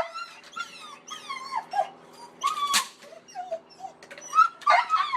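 A dog whining in a series of short, high-pitched cries that rise and fall, over a faint steady hum.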